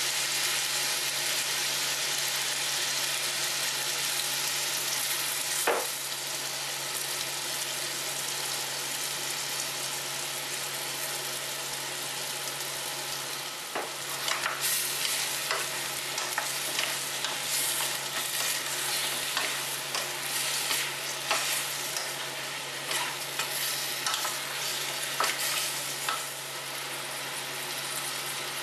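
Chicken, chestnuts and mushrooms sizzling in a stainless steel saucepan over a gas flame, with a steady low hum underneath. From about halfway in, after soy sauce goes onto the food, the sizzle turns to frequent sharp crackles and pops.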